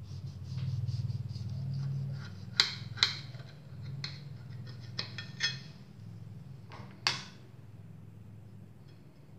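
A knife sawing through a soft peanut sponge cake and clinking sharply against the plate about five times, over a steady low hum.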